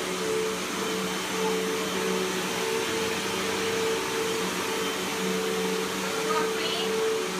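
Vacuum cleaner running steadily: a constant motor hum over a rush of air.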